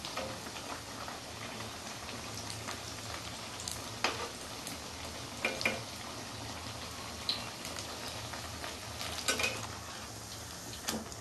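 Onion pakoras deep-frying in hot oil in a kadai, a steady sizzle throughout, with a few sharp clicks of a metal spatula against the pan.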